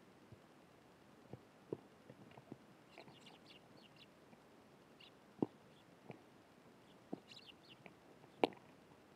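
Eurasian tree sparrows giving short high chirps in two quick clusters. Scattered irregular taps and knocks come between the chirps, with two louder knocks in the second half.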